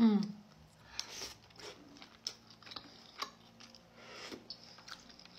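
Close-up eating sounds: soft scattered clicks and short wet mouth noises as a soup dumpling is eaten from a spoon.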